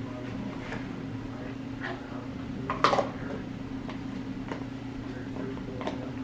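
Kitchen handling sounds: scattered light clicks and knocks of food and containers being handled, the loudest a sharp knock about three seconds in, over a steady low hum.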